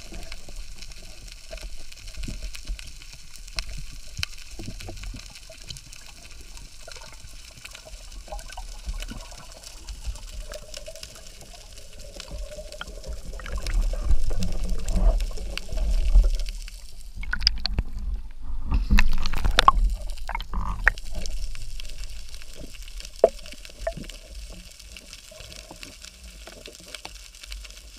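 Underwater water noise heard through a camera housing as a freediver swims up from the seabed. A steady low rumble turns louder and busier with bubbling and crackles about halfway through, as a stream of air bubbles rises past, then eases off near the surface.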